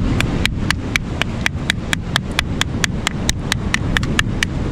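A metal chokka (squid) mallet tapping an alikreukel (giant periwinkle) shell to crack it open for bait, in quick, even strikes at about four a second. Wind and surf rumble underneath.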